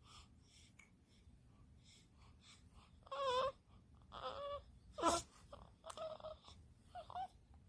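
Newborn baby fussing: about five short whimpering cries and strained squeaks, starting about three seconds in, with a sharper burst in the middle.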